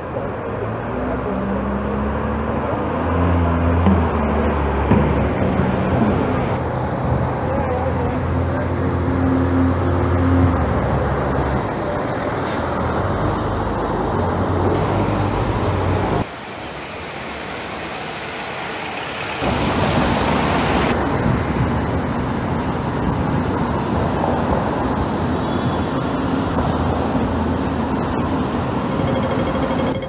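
Single-deck diesel bus engine running, its pitch stepping up and down during the first dozen seconds, over street traffic noise. Later a steady high whine joins the traffic for several seconds.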